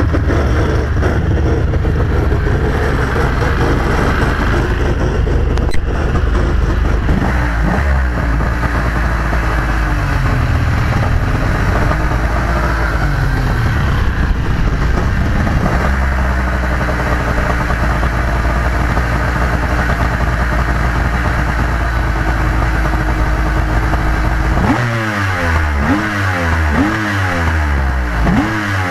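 Yamaha LS2000 jet boat's two-stroke Yamaha GP1200 engines running out of the water on a garden-hose flush. They idle steadily at first, are revved up and down in slow swells, then idle again. Near the end they are blipped about once a second.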